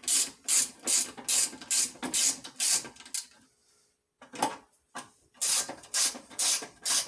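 A ratcheting driver with a T15 Torx bit, backing out the screws of a turn signal lens. It rasps in short strokes, about two or three a second, pauses for about a second a little over three seconds in, then starts again.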